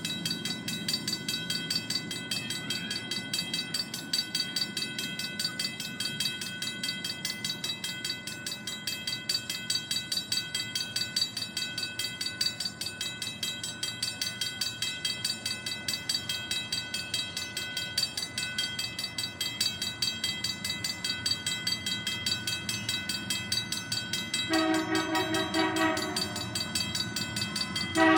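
Locomotive bell ringing at a steady rapid beat over the low rumble of the approaching CN SD70M-2 freight locomotive, with its air horn sounding a chord near the end.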